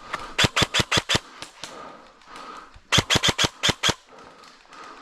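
Airsoft gun firing in two short rapid bursts, each about a second long at roughly six or seven sharp shots a second, the second burst starting about three seconds in.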